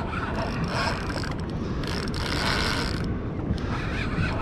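Spinning reel working under the load of a big hooked redfish, giving a few bursts of mechanical whirring about a second long, over wind on the microphone.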